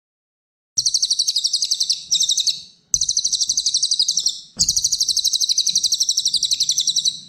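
Cililin songbird singing rapid, high-pitched trills in three long runs, each made of many fast repeated notes; the bird starts about a second in.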